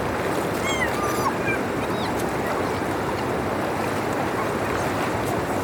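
Steady rush of drain water flowing through a freshly cleared dam drainage after heavy rain. A few brief, falling high calls from birds sound over it in the first couple of seconds.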